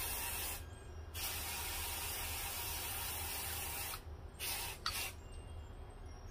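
Aerosol spray paint can spraying green paint in a steady hiss that breaks off briefly about half a second in, runs on for about three seconds, then gives two short spurts before stopping.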